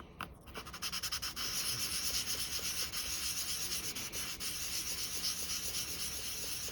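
Super fine 1000-grit sandpaper rubbed over a small RC car differential part to polish it: a steady hiss of rapid strokes that starts with a light click and stops near the end.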